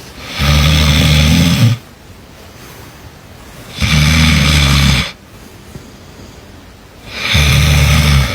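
A person snoring loudly: three long, deep snores of about a second each, roughly three and a half seconds apart, each a low rumble with a breathy hiss on top.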